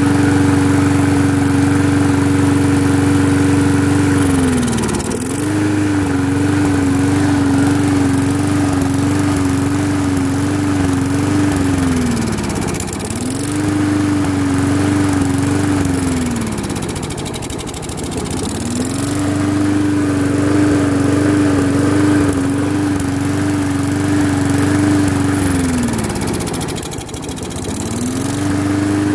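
A Briggs & Stratton 4.50 single-cylinder mower engine running at speed, then bogging down and slowing sharply four times before picking back up each time. Each dip comes as Seafoam is poured into the carburetor intake.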